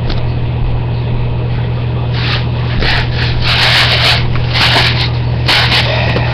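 Irregular rustling and scraping of plastic parts being handled, starting about two seconds in, over a steady low hum.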